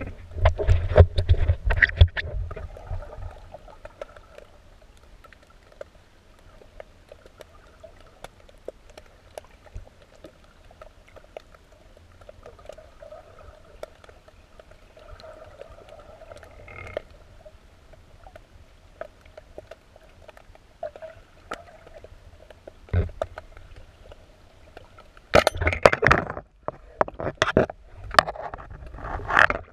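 Muffled underwater sound picked up through an action camera's waterproof housing: a quiet wash of water noise with scattered small clicks and crackles. Loud, rumbling bursts of water and bubble noise come in the first couple of seconds and again in the last few seconds.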